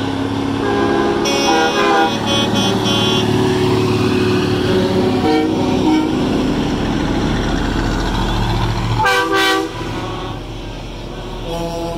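Semi trucks roll past with their diesel engines running and sound their air horns. Several short horn blasts come in the first three seconds, a loud short blast about nine seconds in, and another near the end.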